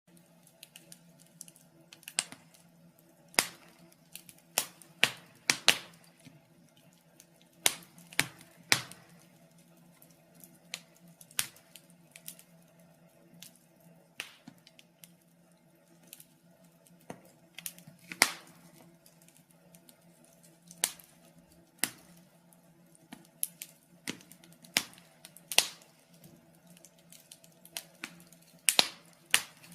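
Burning wood fire crackling: irregular sharp pops and snaps, a few of them loud, scattered through the whole stretch over a faint steady low hum.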